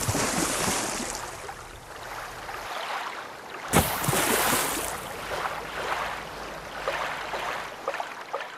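Rushing river water with wind noise on the microphone, a steady noisy wash. There is a sudden jump in level just under four seconds in.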